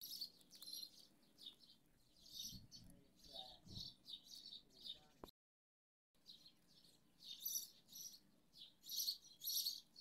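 Birds chirping: many short, high-pitched chirps in quick succession, faint, breaking off briefly about halfway through.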